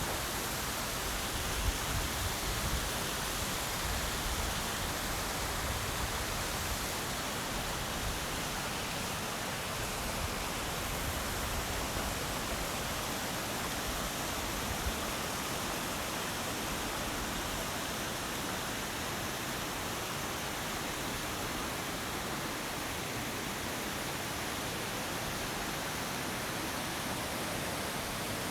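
Steady rush of running water from a forest stream, an even hiss with no change in level. Some low wind rumble and a few light bumps come in the first few seconds.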